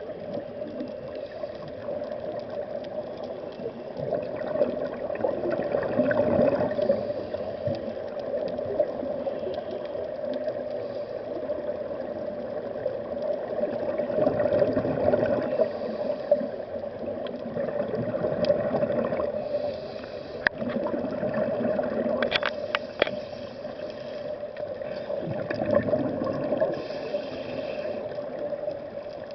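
Underwater sound of scuba divers' exhaled regulator bubbles, gurgling in swells every few seconds over a steady drone. A few sharp clicks come about two-thirds of the way through.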